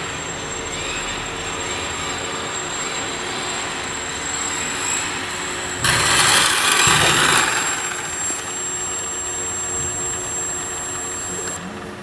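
Home-built CNC machine running: a steady high whine over a machine hum, with a louder rushing burst for about a second and a half around six seconds in.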